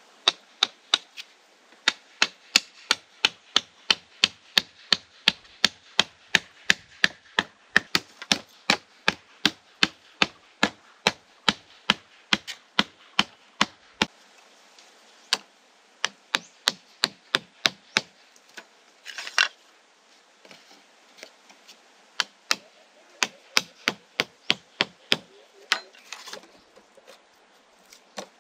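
Bamboo stakes being knocked down into the earth, a sharp wooden knock about two or three times a second in long runs with short pauses. There is one brief scrape about two-thirds of the way through.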